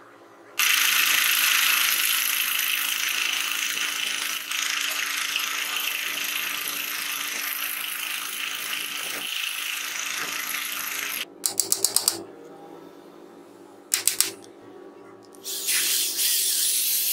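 A twist drill bit boring into a small wooden block, a steady cutting noise for about ten seconds. Then a quick run of about six clicks, a quieter pause, and drilling starts again near the end.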